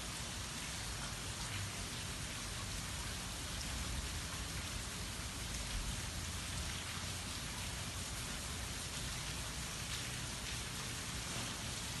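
Steady light rain falling on trees, grass and water: an even hiss with a low rumble underneath, no thunder.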